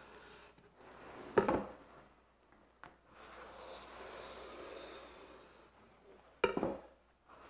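Pencil scratching along a pine board as a long line is drawn, with a steel combination square slid along the edge as a gauge. Two sharp clacks of the square against the wood, about a second and a half in and near the end, are the loudest sounds.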